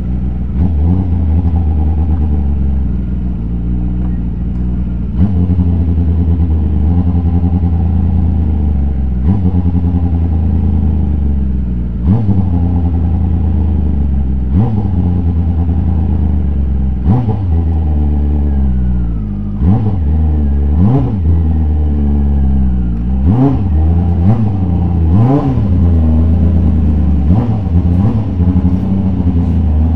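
Kawasaki ZX-10R inline-four motorcycle engine in a formula car running at low revs in first gear while creeping along, with a short, sharp rise in revs every few seconds.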